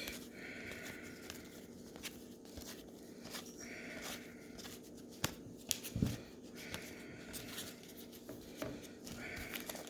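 Trading-card packs and cards being handled: soft scraping rustles with scattered light clicks and taps, over a faint steady hum.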